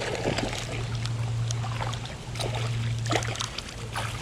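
Water splashing in short, irregular bursts as a hooked fish thrashes at the surface while being brought to the net, over a steady low hum.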